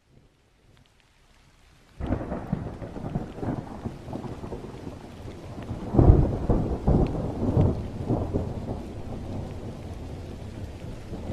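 Thunderstorm: steady rain with rolling thunder, starting suddenly about two seconds in, the loudest peal about six seconds in, then easing off.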